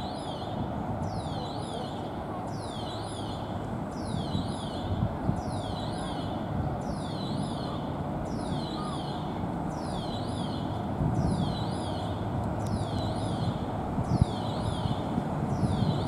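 VL10 electric locomotive and its coaches moving slowly along the station track: a steady low rumble with some rail knocks, louder around the middle and at the very end. Over it, a high chirp repeats about once a second.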